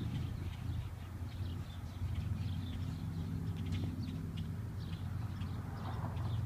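Birds chirping in short, repeated high calls over a low, steady engine hum.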